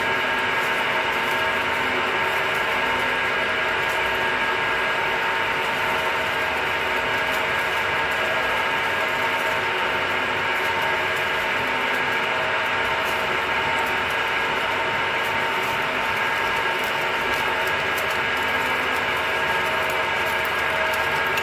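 Metal milling machine running steadily under a cut, its gear drive giving a steady whine of several fixed tones over the cutting noise.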